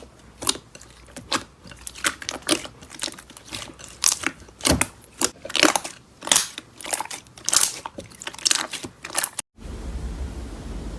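Slime being squeezed and pressed by hand, giving irregular crunchy crackles and pops, about two or three a second. About nine and a half seconds in it cuts off suddenly to a steady hiss.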